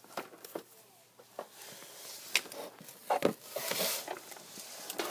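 A plastic toy car with dolls inside being handled and pushed along: scattered plastic clicks and knocks, one heavier thump past the middle, and a scraping rush as it moves.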